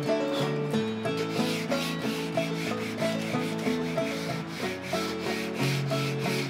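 Sandpaper rubbed by hand back and forth along a wooden molding, a quick rhythmic scratching of about two strokes a second as the old finish is sanded off toward bare wood. Music plays underneath.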